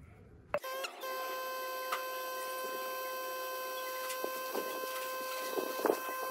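A small electric motor starts with a click about half a second in, then runs with a steady high whine and hiss.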